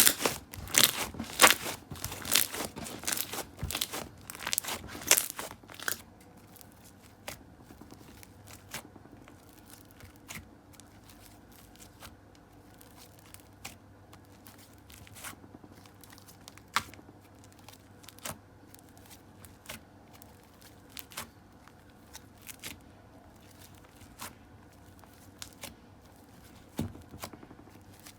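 Slime being squeezed and stretched by hand, giving sticky crackling and popping. A dense run of crackles fills the first six seconds or so, then it thins to single pops about once a second.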